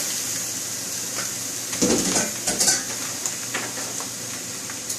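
Freshly washed Hokkien noodles sizzling in a hot wok on a gas burner, with a metal wok spatula scraping and clanking against the pan as they are tossed. The clanks come a few times, loudest about two seconds in.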